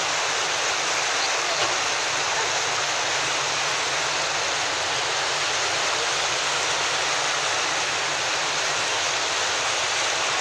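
Muddy floodwater rushing fast down a canal swollen by heavy rain, a steady, even rush of turbulent water.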